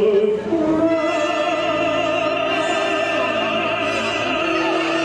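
Male operatic tenor singing live: a rise about a second in to a long high note held with vibrato, then a drop to a lower note near the end.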